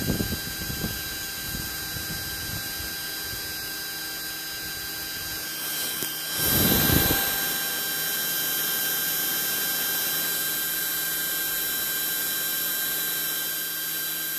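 Spindle motor of a small DIY CNC engraving machine running steadily with a high whine. A brief low rumble comes about six and a half seconds in.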